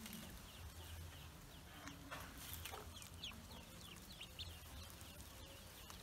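Ducklings peeping faintly, many short high calls scattered throughout.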